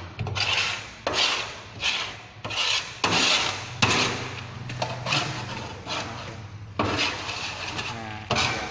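Rough scraping strokes, roughly one a second, like a tool rasping against a surface. A steady low hum runs underneath.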